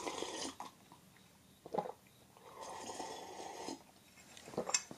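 A person chugging milk from a cup, with soft gulping and slurping in two stretches and a few short swallowing clicks between them.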